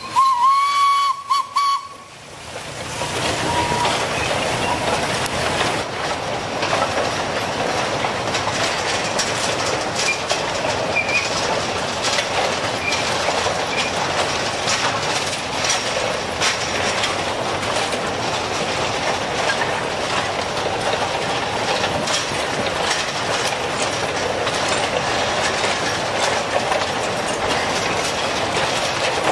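A long rake of empty narrow-gauge sugar-cane wagons rolling past, a steady clattering rumble with irregular clicks of the wheels over the rail joints. A short high steady tone sounds in the first two seconds.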